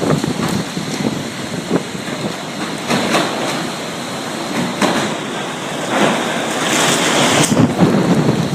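Hurricane storm wind: a loud, steady rushing that swells in gusts, strongest a little after halfway through, buffeting the microphone.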